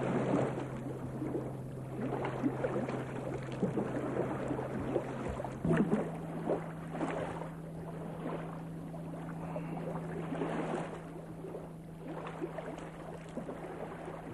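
Water lapping and washing in swells every couple of seconds over a steady low hum, and the hum shifts slightly higher about halfway through.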